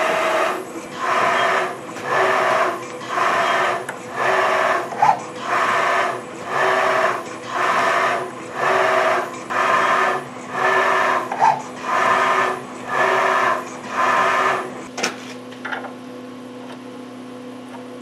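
A machine tool cutting splines into the end of a steel axle half-shaft, with one cutting pass about every second. Each pass is a grinding cut lasting most of a second. The passes stop with a click about 15 seconds in, leaving a steady machine hum.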